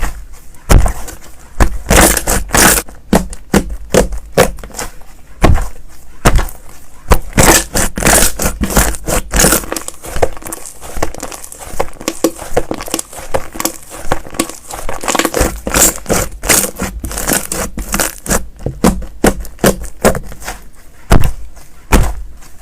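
Slime being squeezed and stretched by hand, crackling and popping in quick, dense runs of clicks.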